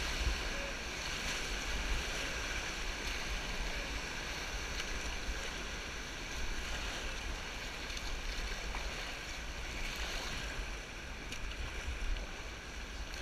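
Whitewater rapids rushing and churning around an inflatable raft, with a low rumble of wind on the microphone. The rush eases slightly toward the end as the raft comes out into calmer water.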